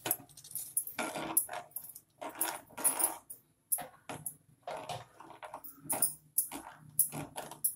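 Steel spoon stirring vermicelli into thick boiling milk and sago in a non-stick pan, with irregular clinks and knocks as it strikes the pan and short scrapes along it.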